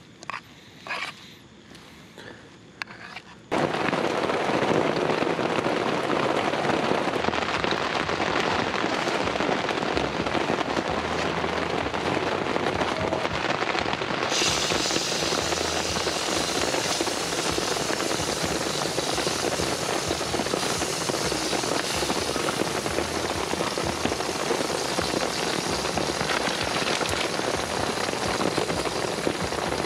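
A few light clicks of utensils, then about three and a half seconds in a loud sizzle starts suddenly as an egg fries in hot oil on a small steel frying plate, crackling and spitting steadily. About halfway through the sizzle turns brighter and hissier.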